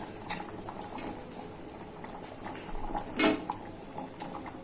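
Potato curry gravy boiling in an aluminium kadai, a steady bubbling, with a few light clicks and a louder splash about three seconds in as pieces of egg omelette are put into it.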